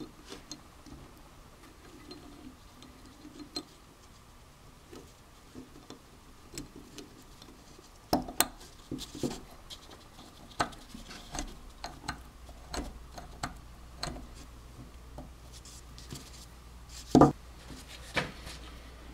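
Small steel parts of a ratchet head clicking and clinking as it is handled and reassembled: scattered light clicks, busier from about eight seconds in, with a louder knock near the end.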